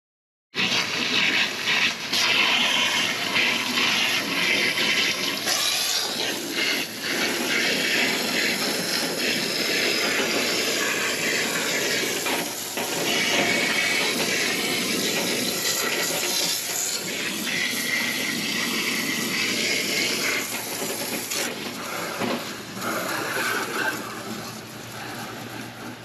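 Garden hose sprayer on its jet setting blasting water into a corrugated soffit vent strip and against the siding, a steady hiss and splash that starts abruptly and eases off a little near the end. The water is rinsing dissolved grime and air conditioner cleaner out of the vent.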